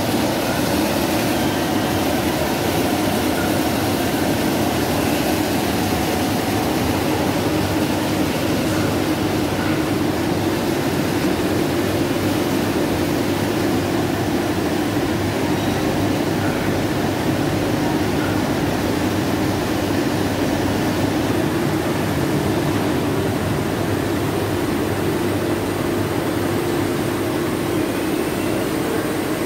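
1998 OMET Multifilm 520 FP multi-unit UV flexo label printing press running in production: a loud, steady machine hum with a constant hiss over it, unchanging throughout.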